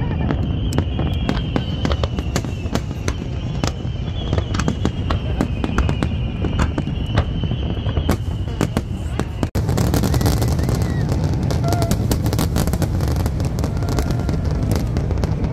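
Fireworks display: a dense, continuous run of aerial shells banging and crackling. About nine and a half seconds in the sound cuts off for an instant, then the crackling comes back denser.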